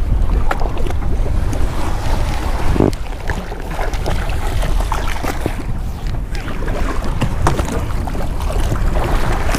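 Wind buffeting the microphone over rough water, with water splashing and slapping against the side of a small fishing boat as a sailfish thrashes at the surface. Scattered knocks and splashes run throughout.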